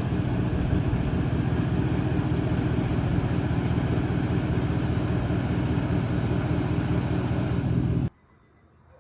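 A vehicle engine idling steadily, then cutting off abruptly about eight seconds in.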